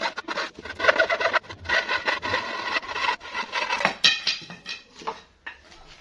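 Hand saw blade cutting through a wooden broom handle in rough back-and-forth strokes, about two a second, until the piece is cut through about four seconds in.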